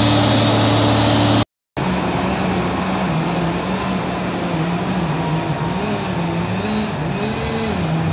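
Engine-driven tree-removal machinery running steadily with a low hum. After a brief dropout about a second and a half in, an engine runs on with its pitch rising and falling as its load changes.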